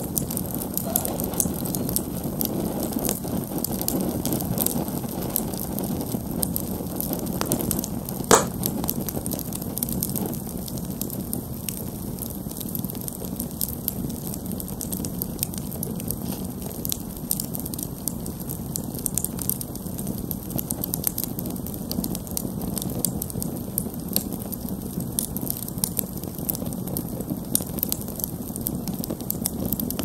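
Wood campfire burning with tall flames: a steady low rush of flame with frequent small crackles and pops from the burning wood, and one sharp, louder pop about eight seconds in.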